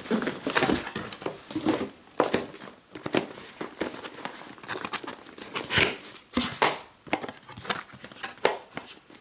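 Cardboard and paperboard packaging being handled: a white boxed-camera carton slid out of a brown cardboard box and its lid opened. The sound is irregular scraping, rubbing and light knocks, with the loudest strokes a little past halfway.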